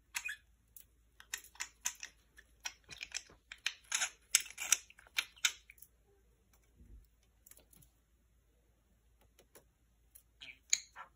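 Budgerigar clicking with its beak in quick runs of sharp clicks, pausing for a few seconds in the middle and starting again near the end.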